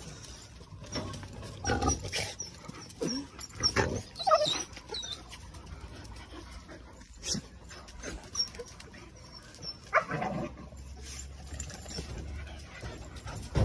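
Young dogs playing roughly together, giving short whines and yelps in scattered bursts, most of them in the first few seconds and again near the end.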